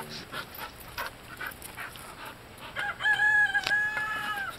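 A rooster crowing once, a long call held at one pitch for about a second and a half, beginning about three seconds in.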